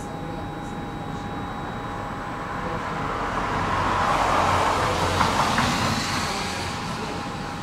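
Inside a standing tram: a steady electrical hum, while a vehicle passes outside, its noise swelling to a peak about halfway through and fading again.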